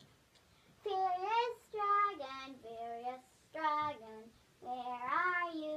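A child singing a tune alone, in about five short phrases of held notes, the first starting about a second in.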